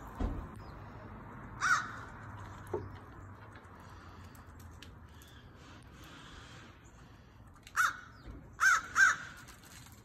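Crow cawing: one caw, then three more near the end, the last two in quick succession. A short low thump comes right at the start.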